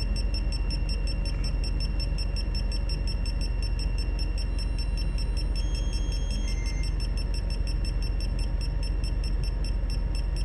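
Steady low hum of shipboard machinery, with a faint, steady high-pitched electronic tone and a fast, even ticking above it.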